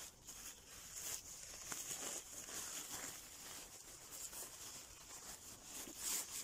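Lightweight tent fabric rustling and crinkling as it is folded and rolled up by hand for packing, in a run of soft irregular swishes with a louder rustle near the end.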